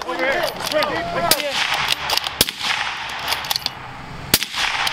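Gunshots: several sharp reports that ring out briefly, the two loudest about halfway through and near the end. Men's raised voices are heard in the first second or so.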